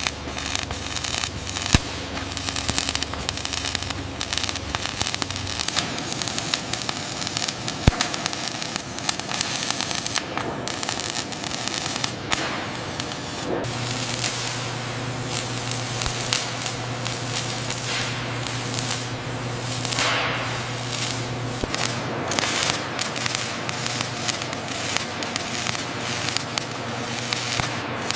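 Arc welding on steel, a continuous crackling, hissing sputter with many sharp pops. A steady low electrical hum joins it about halfway through.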